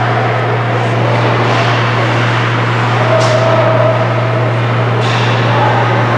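Ice hockey rink sound during play: a steady low hum under a wash of noise, with two brief scrapes of skate blades on the ice, about three and five seconds in.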